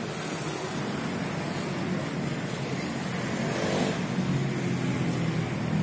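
Steady low rumble and hiss of motor vehicle noise.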